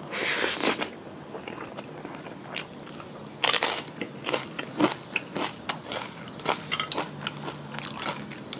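Spaghetti noodles slurped into the mouth in the first second, then close-miked chewing with many short wet clicks, and a second slurp-like burst about three and a half seconds in.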